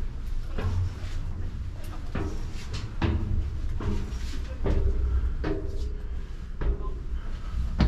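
Footsteps climbing a steel staircase with chequer-plate treads: a knock or clank about once a second at a steady walking pace, over a low rumble.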